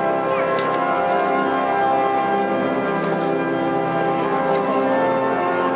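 Walcker pipe organ playing full, sustained chords that change every second or so.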